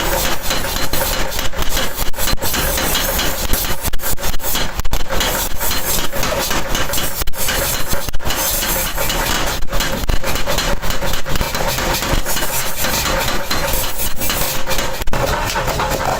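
Workshop machinery running steadily with a faint hum, under many irregular sharp knocks and clatters.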